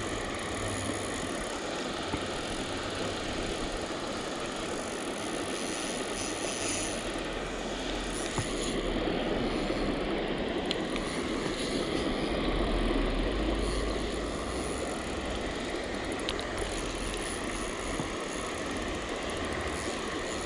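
Steady rush of creek water spilling over a small rocky weir, swelling with a low rumble from wind on the microphone for several seconds in the middle.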